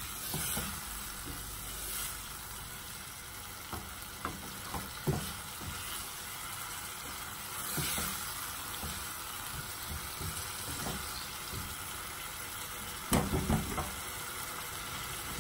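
Chicken pieces sizzling as they fry in oil and spice masala in a nonstick saucepan, stirred with a silicone spatula, with soft scrapes and taps against the pan. A cluster of louder knocks comes about 13 seconds in.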